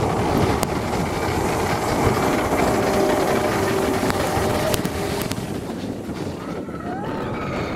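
Expedition Everest roller coaster train rolling along its track: a steady rumble and clatter of the wheels on the rails, with a thin whine held for a few seconds in the middle.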